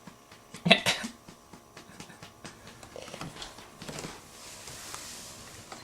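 A single short grunt-like vocal sound about a second in, followed by faint, soft handling noises.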